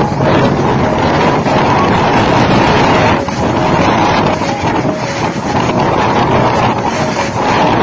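Fast-flowing floodwater rushing, with wind buffeting the microphone: a loud, steady noise.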